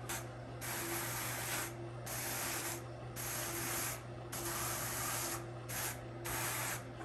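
Burnishing brush swept repeatedly over wool and bamboo fibre on the large drum of a Clemes & Clemes crankless drum carder, packing the batt down. It makes about seven rough brushing strokes, roughly one a second, over the steady low hum of the carder's motor turning the drum.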